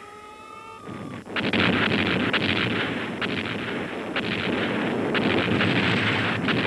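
A continuous barrage of explosions and gunfire with many sharp cracks, breaking out about a second in as a siren's falling tone fades away.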